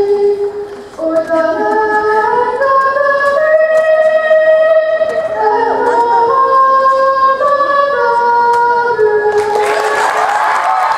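A girl singing solo into a microphone, holding long notes that step from one pitch to the next. Near the end the crowd starts cheering.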